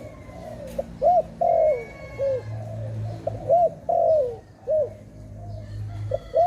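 Zebra dove (Malay dove) cooing: a run of short rising-and-falling coo notes, some clipped and some drawn out, repeated about every half second.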